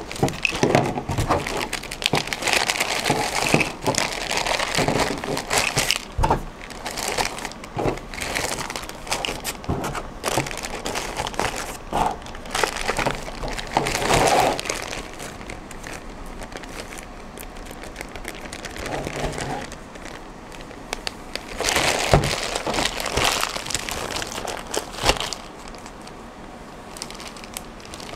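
Clear plastic bag and plastic-wrapped toiletry packets crinkling and rustling as they are handled and packed away, in irregular bursts with a few light knocks of items set on the table, busiest in the first half and again for a few seconds later on.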